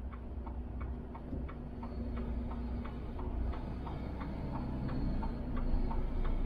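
Turn-signal indicator ticking steadily inside a Volvo truck cab, about three ticks a second, over the low steady hum of the truck's diesel engine while it manoeuvres at low speed.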